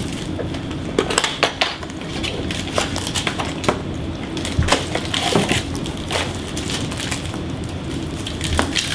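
Crinkling and tearing of a trading-card pack wrapper as it is ripped open and handled, heard as irregular crackles and clicks.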